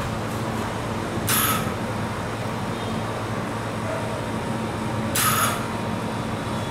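Metal spatula scraping across a frozen ice-cream roll plate, rolling up the ice cream: two short, loud rasps about four seconds apart, over a steady background hum.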